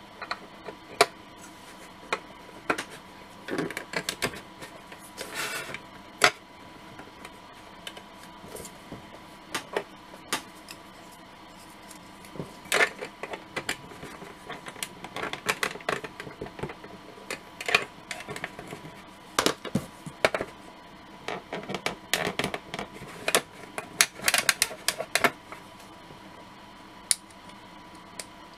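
Plastic model-kit parts being handled and fitted together on a board: irregular clicks, taps and short scrapes of hard plastic, busiest in the second half.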